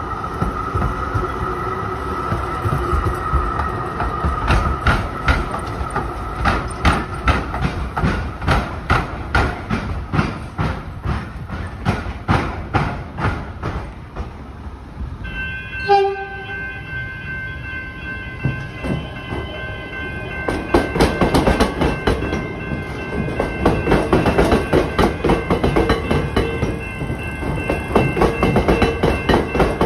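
Wheels clattering over a tram-and-rail crossing square in a steady run of clacks: first a tram crossing, then, after steady high-pitched tones set in about halfway with a brief low tone just after, an electric suburban train passing with a faster, louder clickety-clack.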